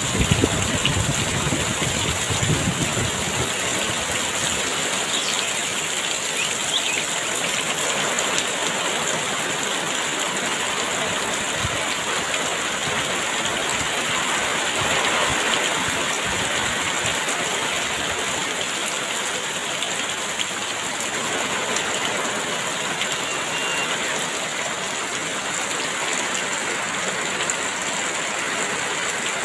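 Heavy rain pouring steadily, a dense even hiss of drops, with gusts of wind adding a low rumble in the first few seconds.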